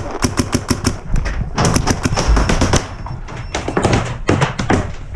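Paintball marker firing in quick strings of shots: three rapid bursts of sharp cracks, several shots a second.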